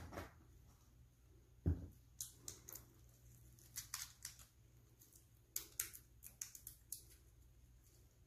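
Faint handling of small objects: a dull thump a little under two seconds in, then scattered short, sharp clicks and snips in a few clusters.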